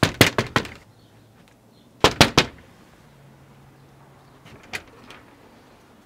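Knuckles knocking on a glass-paned door: a rapid run of about five or six knocks, then a second run of about four about two seconds later.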